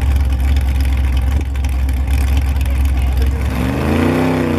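Ultra4 rock-racing car's engine running at low revs with a deep steady drone, then revved up and back down twice from about three and a half seconds in as it crawls over boulders.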